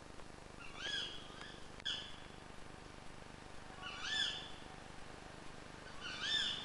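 An owl calling: four short, high notes that rise and fall, spaced one to two seconds apart.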